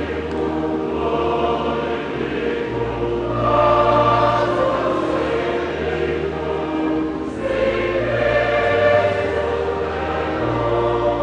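Choir singing a church hymn over held bass notes from an accompanying instrument, the notes changing every second or two.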